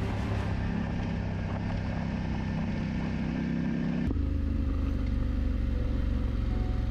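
Motorcycle engine running steadily under way on a gravel road, with wind and tyre noise. About four seconds in the sound changes abruptly: the hiss drops away and a deeper, steadier engine note remains.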